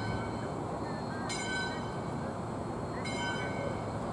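Valley Railroad 2-8-2 steam locomotive No. 40 and its train standing at the station with a steady hiss and rumble. A bright, ringing bell sounds about every second and a half.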